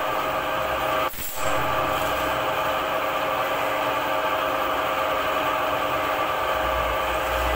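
A machine running with a steady hum, several even tones over a constant hiss, broken by a brief dip about a second in.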